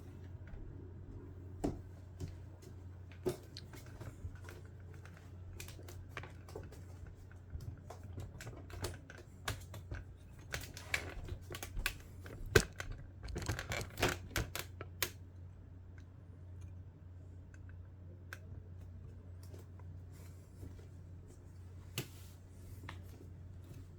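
Scattered clicks and light knocks of a Shark Navigator Lift-Away Pro vacuum's parts being handled and fitted, thickest about ten to fifteen seconds in, over a low steady hum. The vacuum motor is not running.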